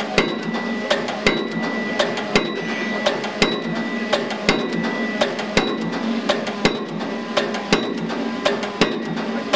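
Pile-driving rig's hammer striking a precast concrete pile at an even rate of about one heavy blow a second, with lighter knocks between the blows. A steady high whine runs underneath.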